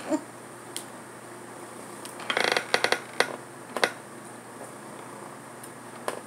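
Handling clatter as a dropped item is picked up off the floor. About two seconds in there is a quick rattling run of clicks, then a few single sharp clicks.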